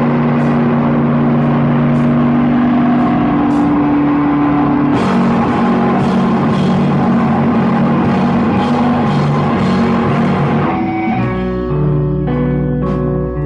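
Rock music with guitar and drums, thick held notes and cymbal hits; about eleven seconds in it drops to a sparser passage of separate picked notes.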